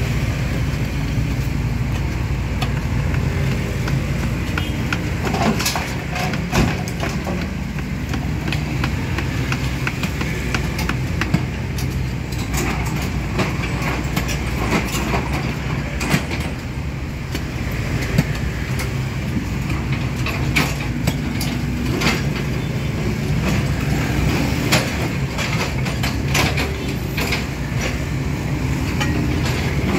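Diesel engine of earthmoving machinery running steadily with a low drone. Scattered sharp knocks and clatters come at irregular intervals, from the digging and loading of ditch soil.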